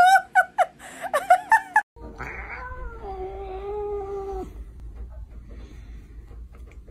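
A calico cat gives one long, low yowl lasting about two and a half seconds. It starts a little higher, holds a steady pitch and stops abruptly.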